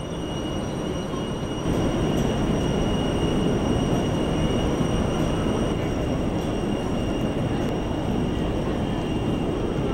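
Steady, loud rumbling noise on the open deck of a navy ship under way, with a faint steady high whine over it. It steps up in loudness just under two seconds in.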